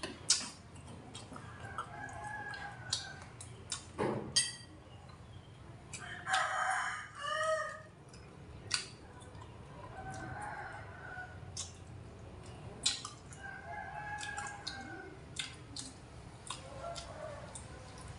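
A rooster crowing several times, the loudest crow about six to seven seconds in, with light clicks of chopsticks on bowls between the crows.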